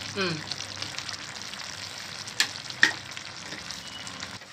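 Chicken curry gravy sizzling and bubbling steadily in a kadai on a gas flame. Two sharp knocks about half a second apart come near the middle.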